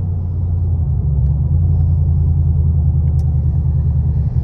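Vehicle cabin drone while driving: steady low engine and road rumble from inside the cab, growing a little louder about a second in.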